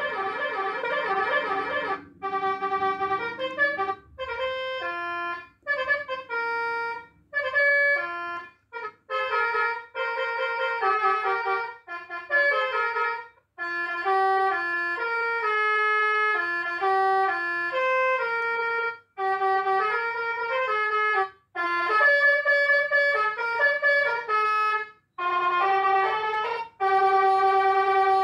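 Electronic 'basuri telolet' horn playing tunes: a warbling tone for about the first two seconds, then a melody of stepped, horn-like notes in phrases broken by short pauses.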